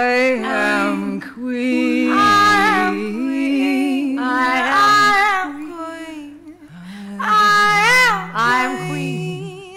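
Women's voices singing long held notes together, one voice steady beneath another with a wide vibrato, in phrases a second or two long.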